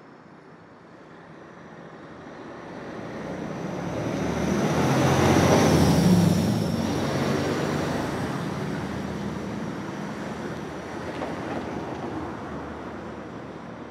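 Motor coach driving past close by. Its engine and tyre noise builds for several seconds, peaks about six seconds in as it passes, then fades as it pulls away.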